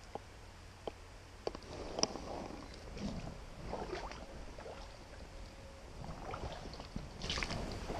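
Water splashing and sloshing as a hand moves in a shallow stream, in irregular spells that are strongest near the end, after a few sharp clicks in the first two seconds.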